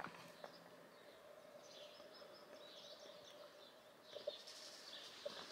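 Near silence: faint bird chirps come and go, over a faint steady hum.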